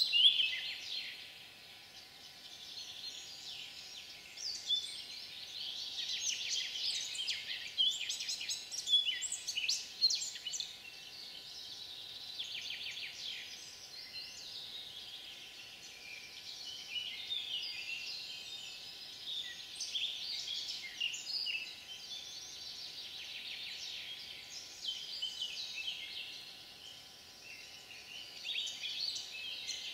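Several songbirds singing at once: many overlapping high chirps and trills with no pause.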